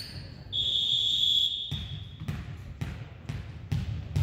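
Referee's whistle blown once, a steady high blast lasting about a second. Then a ball bounced repeatedly on the hardwood gym floor, about two bounces a second.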